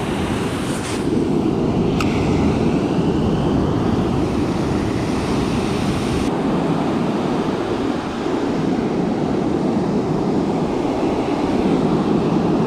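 Ocean surf breaking and washing up the beach, with wind buffeting the microphone; a brief click about two seconds in.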